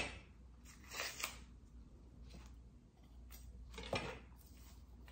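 Faint, papery crackling of dry onion skin being peeled off by hand, in a few short rustles about a second in and again near the end.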